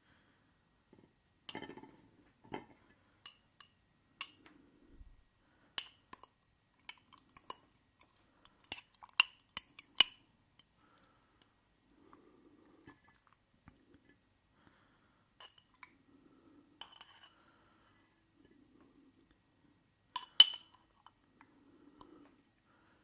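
Cutlery clinking against glassware and dishes: scattered sharp clinks, a quick cluster about nine to ten seconds in and another, the loudest, near the end. Soft chewing sounds come between the clinks.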